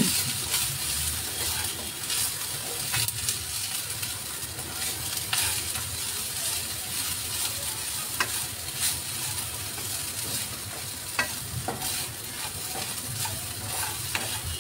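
Shredded boiled chicken sizzling in a little hot oil in a nonstick kadai and being stirred with a plastic spatula: a steady frying hiss, with the spatula's scrapes and taps on the pan now and then.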